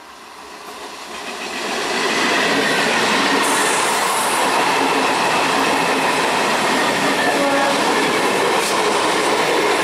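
EMU local train approaching and passing close by at speed. The noise of its wheels on the rails rises over the first two seconds, then holds steady as the coaches run past.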